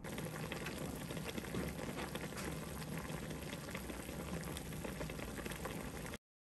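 Chicken hot pot of broth, napa cabbage, tofu and chicken boiling in an earthenware pot, a dense crackle of bubbling that cuts off abruptly near the end.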